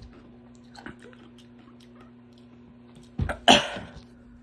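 A person coughs hard, two sharp coughs in quick succession about three seconds in, the second louder: coughing after a mouthful of hot sauce.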